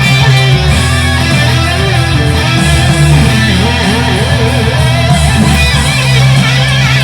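Fender Stratocaster electric guitar played through a Boss Katana amplifier, improvising held notes over a steady low note, with pitch that wavers in bends and vibrato.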